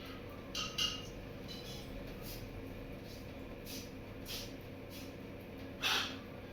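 A pet parrot making a few short chirps and clicks, the loudest near the end, over a steady low hum.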